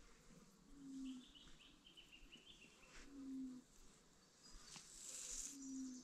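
Faint outdoor animal calls: a short low hoot repeats about every two and a half seconds, three times, with a brief high chirping trill after the first one.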